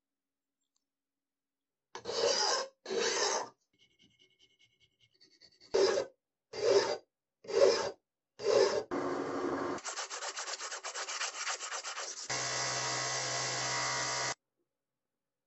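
Hand file strokes on a steel key piece clamped in a vise: two strokes about two seconds in, then four more about a second apart. Near the end a motor-driven polishing wheel runs with a steady hiss over a low hum, the key held against it, stopping suddenly.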